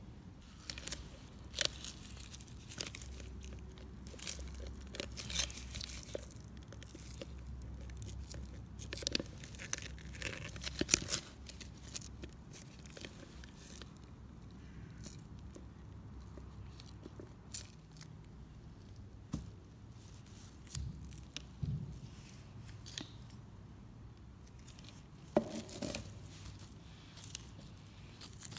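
A flexible plastic mixing cup crinkling and crackling as a cured lump of epoxy is scraped and pried out of it, in irregular bursts of clicks and scrapes. These are busiest in the first dozen seconds, then thin out to scattered clicks.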